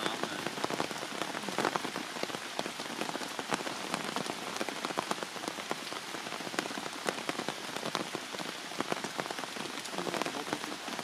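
Heavy rain falling steadily, with many close individual drops heard as sharp ticks over a constant hiss.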